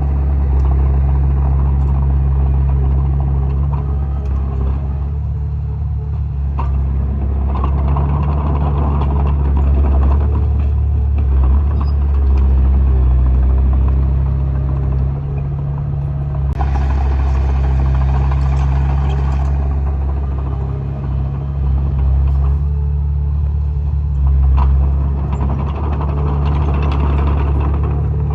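Heavy earthmoving machine engine running steadily while working dirt, with a hissing rush for about three seconds a little past the middle.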